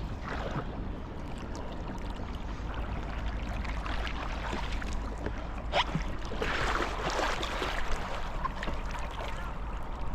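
Water rushing and splashing around a boat on a lake, with a steady low rumble underneath and irregular louder splashes.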